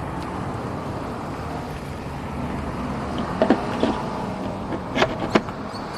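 Steady vehicle rumble and hiss, like passing road traffic, with two sharp clicks near the end.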